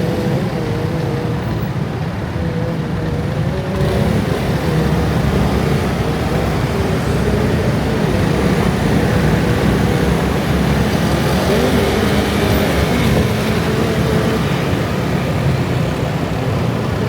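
Dense scooter traffic: many small motor scooter engines running at once, with several overlapping engine pitches wavering over a steady road rumble. It gets a little louder about four seconds in.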